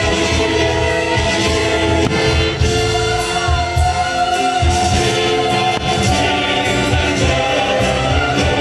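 Music with singing throughout: a choir backed by a band.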